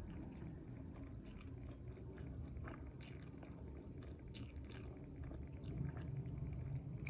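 Close-up mouth sounds of chewing food: irregular wet clicks and small crunches.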